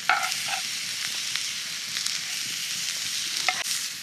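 Sausage and rice jambalaya sizzling steadily in a cast iron skillet over campfire coals. A long-handled spatula scrapes the pan a few times near the start as it is stirred, with scattered clicks later.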